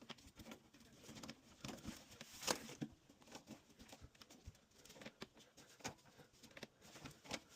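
Faint scattered clicks and knocks of plastic waste pipe fittings being handled and pushed together, with one louder knock about two and a half seconds in.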